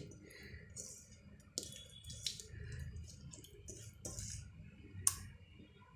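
Hands squishing raw chicken pieces in a yogurt marinade: faint wet squelches with a few small sharp clicks.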